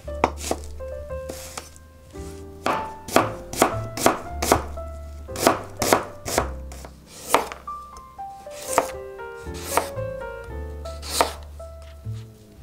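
Chef's knife chopping an onion on a rubber cutting board: a run of sharp knocks at an uneven pace, some in quick clusters of two or three.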